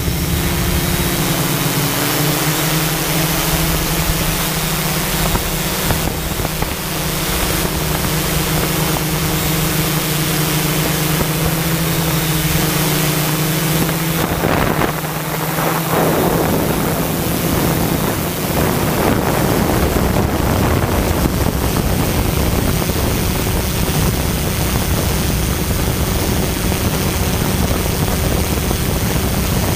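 Quadcopter drone's motors and propellers humming steadily, with wind buffeting the onboard microphone. The hum's pitch changes about halfway through as the drone manoeuvres.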